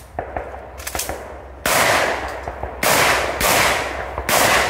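Shotgun firing four shots in quick succession, roughly a second apart or less, the first coming a little over a second and a half in, each blast ringing briefly before the next.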